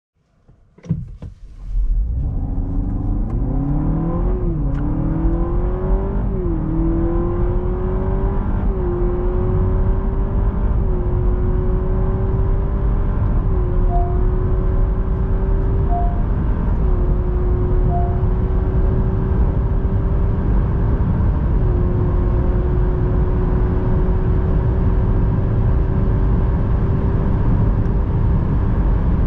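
Honda Civic e:HEV's 2.0-litre four-cylinder hybrid powertrain heard from inside the cabin under full acceleration from a standstill to about 180 km/h. The engine note climbs and drops back several times like gear changes, then holds high and steady over road and tyre rumble. Three short chimes sound about two seconds apart midway through.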